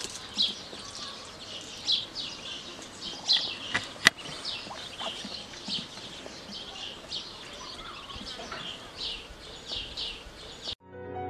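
Small birds chirping outdoors, short falling chirps repeating about once or twice a second, with one sharp click about four seconds in. Music starts abruptly just before the end.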